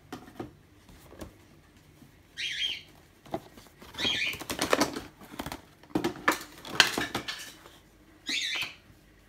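Cardboard board-game components and the game box being handled: tiles and boards sliding, tapping and rustling in several short bursts with pauses between.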